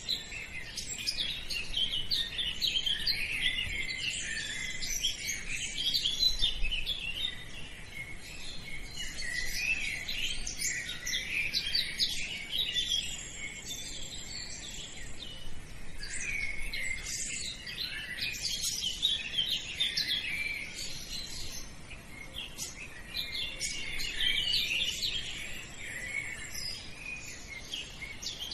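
Many small birds chirping and twittering at once, a dense run of quick high chirps.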